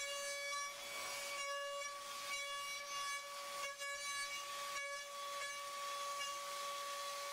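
CNC milling machine's end mill cutting aluminium, giving a steady high-pitched whine with a hiss that comes and goes as the cutter moves through the metal.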